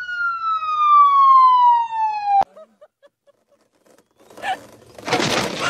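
A single police-siren wail falling slowly in pitch, cut off abruptly about two and a half seconds in. After a short near-silence, a loud noisy stretch begins near the end.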